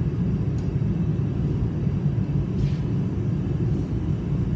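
A forge running steadily, an even low rumble without any hammer strikes, as the bar heats.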